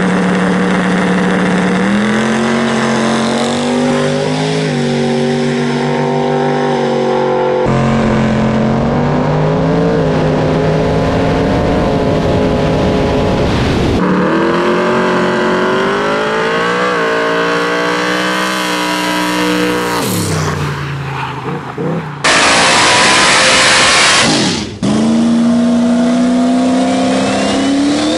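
Drag-race car engines held at high revs at the starting line, the pitch stepping up and holding. The sound changes abruptly a few times between cars. About two-thirds of the way in, one engine's pitch climbs as a car launches and pulls away, followed by a few seconds of loud rushing noise, then a turbocharged engine revving steadily again.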